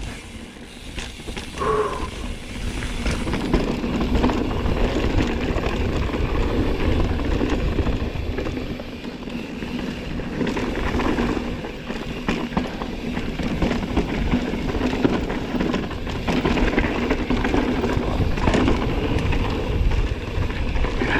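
Mountain bike being ridden along a dirt singletrack trail: tyres rolling over dirt and roots in a steady rushing noise, with many small rattles and knocks from the bike throughout. The noise grows louder about two seconds in, then holds fairly steady.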